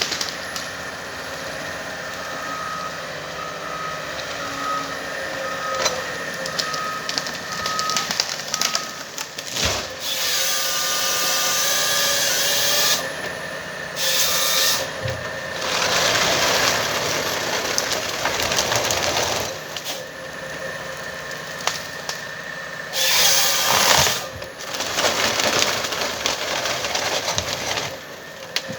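Komatsu 931XC forestry harvester running steadily, with several loud bursts of wood crackling and rasping as its C144 head handles a tree. A short run of evenly spaced beeps sounds a few seconds in.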